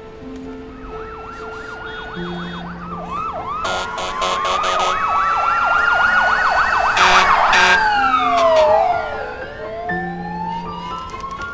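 Fire engine siren on a city street in a fast up-and-down yelp, joined by a second siren and growing louder, with short horn blasts at its loudest. Near the end the siren's pitch falls away and then winds back up.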